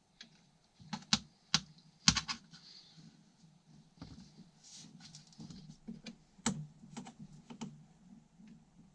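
Wrenches and metal parts clicking and knocking against each other while a Kawasaki KD175 motorcycle engine is taken apart: a run of scattered sharp clicks, the loudest about two seconds in.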